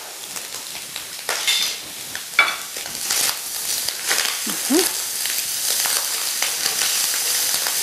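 Broccoli and diced ham sizzling as they are sautéed in a stainless steel skillet, stirred with a spatula that now and then scrapes and knocks against the pan.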